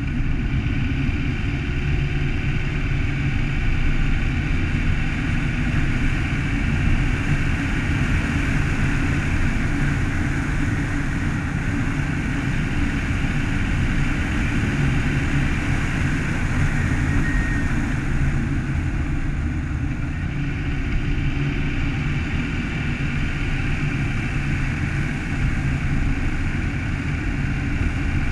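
Car driving steadily along a road: a constant rumble of engine and tyre noise with no marked changes.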